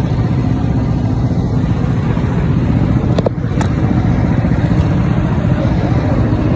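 Go-kart engines running steadily, a dense low motor rumble, with two sharp clicks a little after the middle.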